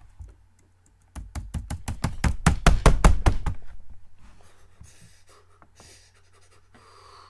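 A rapid run of sharp taps or knocks at a computer desk close to the microphone, about eight a second for some two and a half seconds, growing louder and then fading away.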